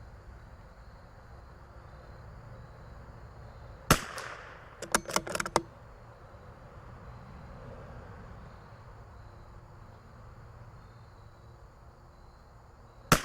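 Two shots from a CZ 457 .22LR bolt-action rifle, about nine seconds apart. The first is followed about a second later by a quick run of metallic clicks as the bolt is worked to eject the case and chamber the next round. The second shot comes near the end, over a faint low rumble.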